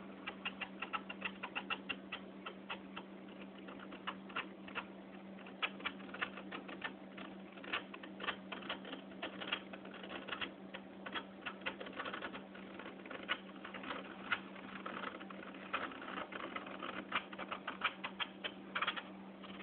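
Dull blade of a magnetic aquarium glass cleaner's scraper dragged slowly across the glass, giving rapid, irregular clicks like typing as it catches and skips. A steady low hum runs underneath.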